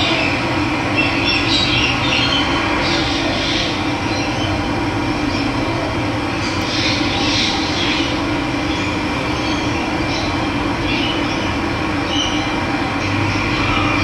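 Steady rush of running water, with small birds chirping over it now and then.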